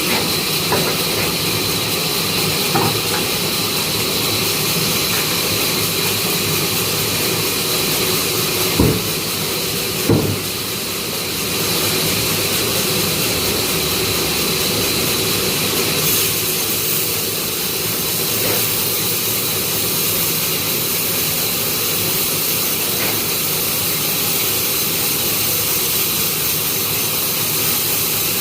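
Sawmill wood-cutting saw running steadily, with a constant high whine, and two short knocks about nine and ten seconds in.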